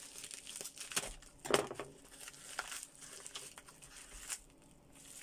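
White plastic parcel wrapping being slit with a knife and then torn and crinkled open by hand: irregular rustles and tears, the sharpest about a second and a half in.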